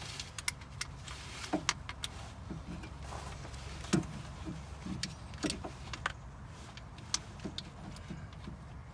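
Socket wrench and metal hand tools clinking and knocking irregularly against metal, with one louder knock about four seconds in.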